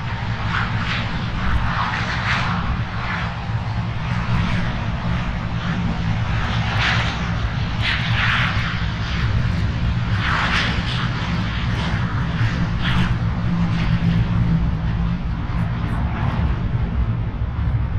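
Navy Blue Angels F/A-18 jet engines running as the jets roll on the runway for takeoff: a steady low rumble with a rougher, wavering hiss on top that swells several times.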